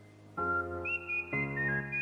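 Background music: a whistled melody over sustained chords that change about once a second.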